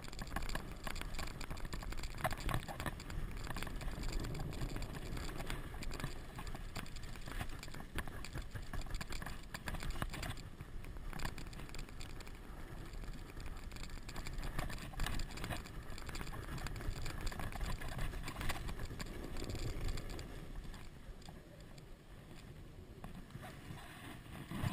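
Wooden toboggan sliding down a packed-snow run: steady scraping hiss and low rumble of the runners over the snow, with scattered small knocks from bumps in the track. It grows quieter in the last few seconds.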